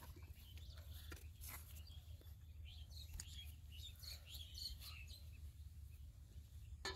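Faint scattered chirps of small birds over a steady low rumble, with one sharp click right at the end.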